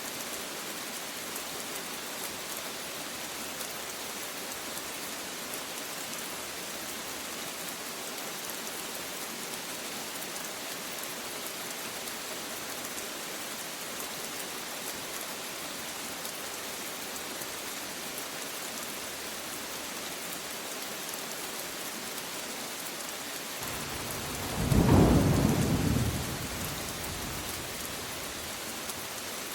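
Steady rain falling, with a single peal of thunder that swells up near the end, peaks for about two seconds as the loudest sound, then dies back into the rain.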